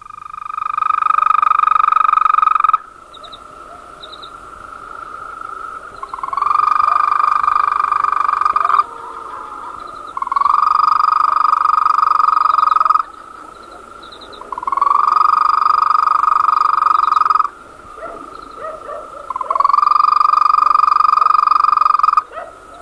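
Green toad (Bufotes viridis) singing alone: a series of long, even, melodious trills, each two to four seconds long, about five in all, each swelling in at its start.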